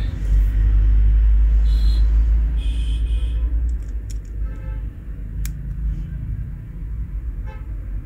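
Passing road traffic: a deep rumble, strongest in the first half, with a few short horn toots.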